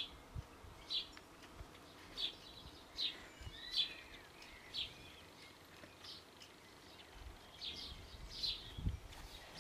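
Outdoor birdsong: short, sharp bird calls repeating roughly once a second, with a few softer twittering notes between them.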